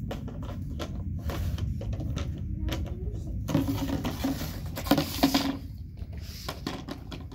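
Blue plastic bucket knocking and scraping on stone pavers as a puppy pushes it along. There is a run of light clicks and bumps, with a louder stretch of scraping about halfway through.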